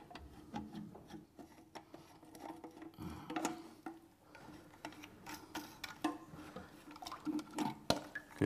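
Scattered light clicks, taps and rubbing of a plastic float valve being worked loose and pulled out through the side of a ceramic WC cistern.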